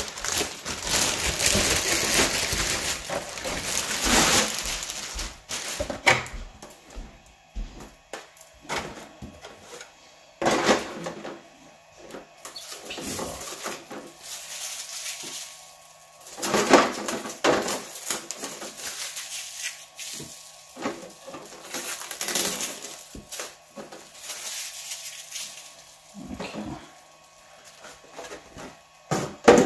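Clear plastic wrapping crinkling and rustling in bursts as it is pulled off an RC truck's plastic body shell. Scattered light clicks and knocks come from the body and chassis being handled.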